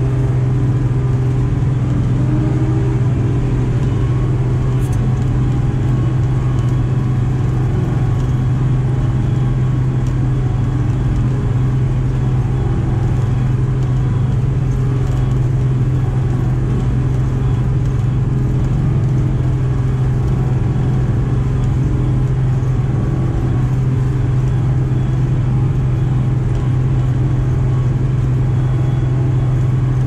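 Farm machinery's engine running steadily under way, a constant low drone that does not rise or fall in speed.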